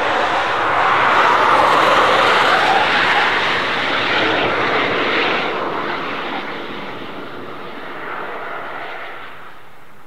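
Rimac Nevera electric hypercar passing at speed and pulling away, heard as a rush of tyre and wind noise with no engine note. The sound is loudest over the first few seconds and then fades as the car goes off down the track.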